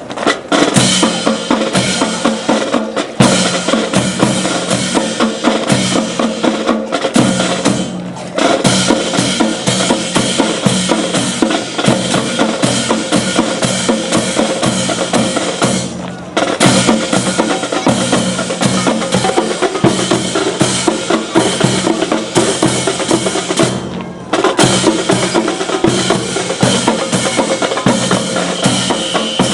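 Drum-led music with a heavy bass drum and snare beat, as played for a drill routine, breaking off briefly a few times.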